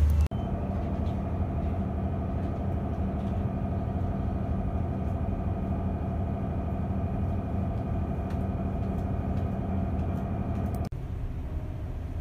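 Steady hum of a cruise boat's onboard machinery heard inside its cabin: a low rumble with a held mid-pitched tone. It switches abruptly to a quieter hum near the end.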